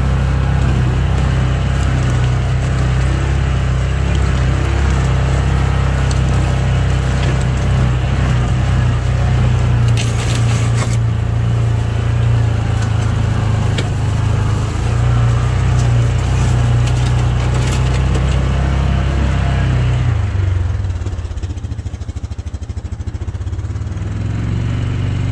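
Yamaha Viking side-by-side's single-cylinder engine running as it drives through dry brush, with weeds and branches scraping and crackling against the body. About twenty seconds in, the engine note drops and the sound gets quieter.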